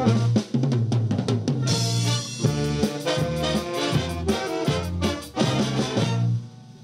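Upbeat music with brass and a drum kit, which stops shortly before the end.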